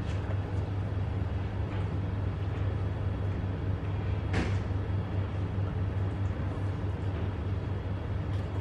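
Steady low hum of room tone, with one brief noise about four and a half seconds in.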